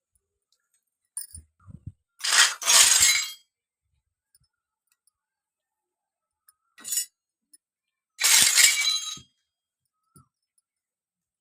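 Small toy kitchen pieces clinking and clattering as they are handled, in four separate bursts; the two longest come about two seconds in and near the end.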